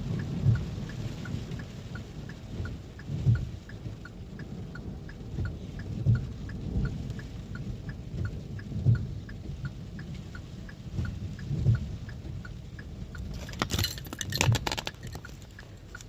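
Thunderstorm rain with a low rumble that surges about every three seconds, over a quick steady ticking; a short burst of clattering near the end.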